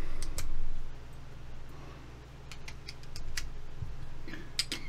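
Hands refitting two cylindrical batteries into a squonk box mod's battery bay and handling its back cover: a scattering of small sharp clicks and taps, bunched near the end, over a steady low hum.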